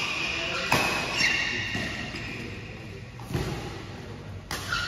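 Badminton rackets striking a shuttlecock during a doubles rally, three sharp hits a couple of seconds apart with a short echo after each. Between the hits come high squeaks, typical of court shoes on the mat.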